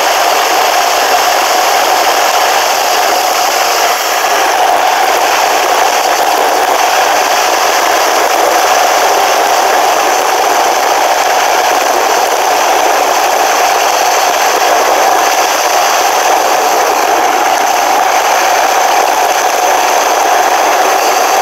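Steady loud rushing noise of a bicycle ride picked up by a bike-mounted GoPro camera: wind and road vibration, with a constant mid-pitched hum under the hiss.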